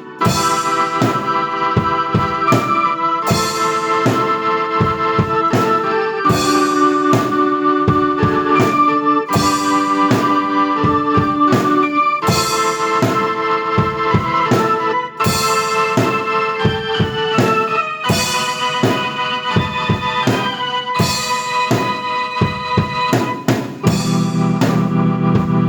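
Keyboard holding sustained chords that change every two to three seconds, over a steady drum-kit beat.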